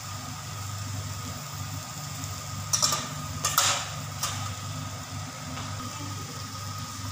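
A steady low hum with a few short metallic clinks against the stainless steel cooking pot, about three and four seconds in.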